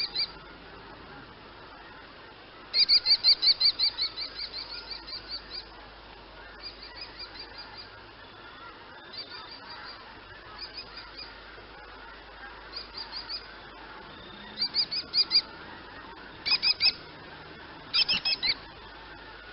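Kestrel calling: rapid series of high, repeated notes. A long run of about fifteen comes a few seconds in, loudest at first and then fading, followed by shorter bursts of three to six notes, all over a steady background hiss.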